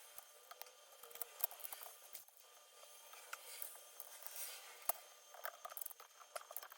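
Irregular light clicks and small handling noises of custom keyboard parts being worked by hand, with a sharper click about five seconds in.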